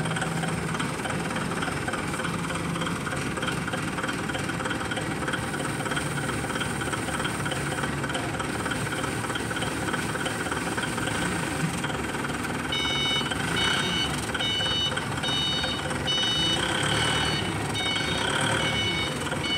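XGMA 3-ton forklift's engine running steadily. About two-thirds of the way through, its reversing alarm starts beeping, about one and a half beeps a second, as the forklift backs up.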